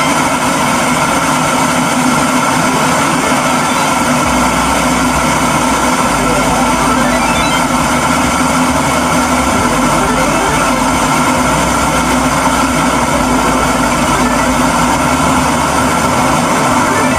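Electric kettle heating water: a steady rushing noise with a faint hum, and a low rumble that comes and goes.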